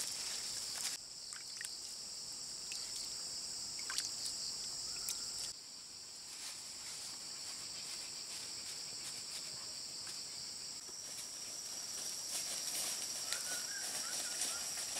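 Steady high-pitched insect drone of a tropical forest, with scattered faint clicks and rustles.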